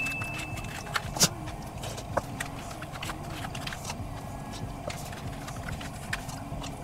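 Small clicks and taps of someone eating, from utensils and chewing, scattered over a steady low room hum. The sharpest click comes about a second in.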